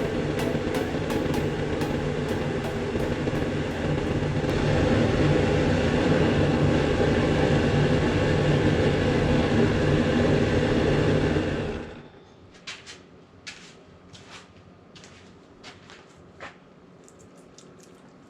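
An electric power tool's motor running steadily. It gets louder and harsher about four seconds in and shuts off at about twelve seconds. A few sharp light taps and clicks follow.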